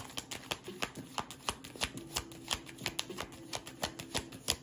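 A deck of tarot cards being shuffled by hand: a quick, uneven run of crisp card snaps, about five a second.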